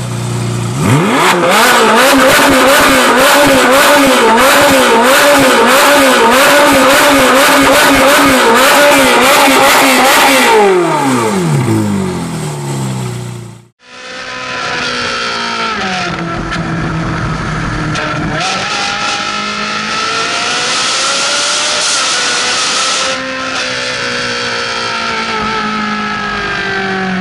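Ferrari 458 Italia's flat-plane V8 revving through a Fi valvetronic catback exhaust. The pitch climbs from idle about a second in, holds high while rising and falling about once a second, then drops back toward idle around 12 seconds in. After a brief break a quieter stretch follows with the engine note sweeping down and back up.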